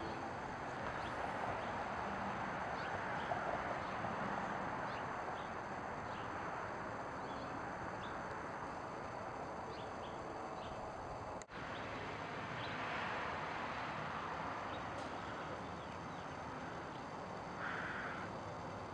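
Outdoor ambience: a steady background hiss with scattered faint bird chirps. The sound drops out for a moment about eleven seconds in.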